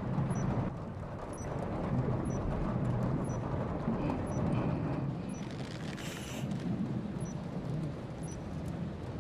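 Animated stomach-growl sound effect: a long, low rumbling growl that swells and fades unevenly.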